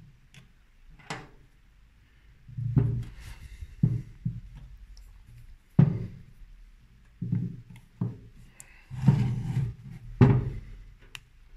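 Irregular knocks and thuds, about eight of them at uneven intervals, as a wooden rifle stock with a steel buttplate is handled and set down on a workbench while its buttplate is unscrewed and pried off.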